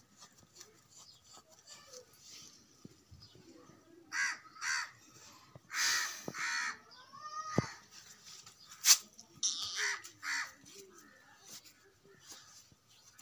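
Crows cawing in short series: two harsh caws about four seconds in, a longer run of caws around six seconds, and more near ten seconds. A single sharp click just before nine seconds is the loudest sound.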